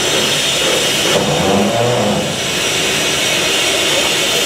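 Pere Marquette 1225, a 2-8-4 Berkshire steam locomotive, standing on a turntable with a steady hiss and rumble of steam.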